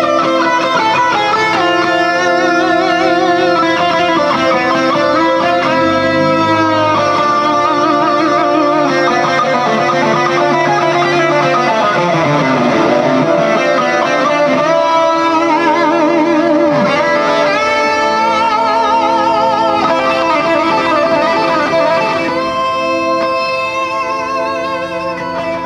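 Instrumental music led by guitar, playing long held notes with a wavering vibrato over steady sustained chords; it gets somewhat quieter near the end.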